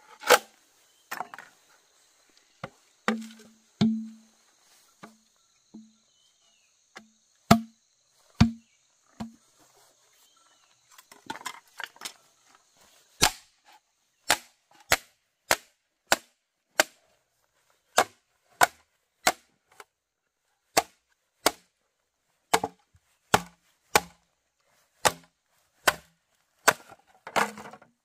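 Wood being chopped by hand with a bladed tool: sharp chopping strikes, sparse and uneven at first, then a steady run of about two a second from about halfway through.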